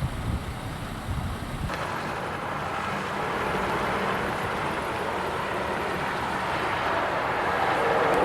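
Steady rushing noise of strong wind and road traffic in blowing snow. The sound changes abruptly about two seconds in, from a low rumble to a brighter hiss that slowly grows louder.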